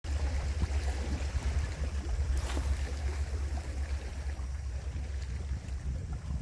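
Wind buffeting the microphone, a steady low rumble with a faint rush of water underneath and a brief rushing swish about two and a half seconds in.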